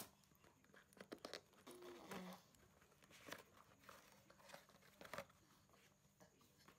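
Faint handling sounds: a few light taps and scrapes as a kids' tablet in its bumper case is lifted out of its cardboard box.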